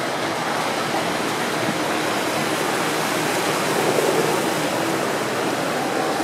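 Steady rush of splashing fountain water, with faint crowd chatter underneath.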